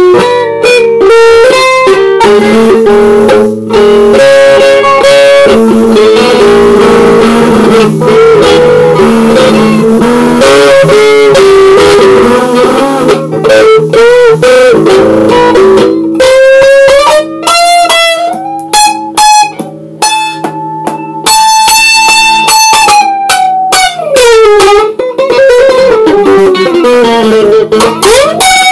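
Guitar music: a guitar line of quick, dense notes, turning past the midpoint into long held notes that bend and slide up and down in pitch.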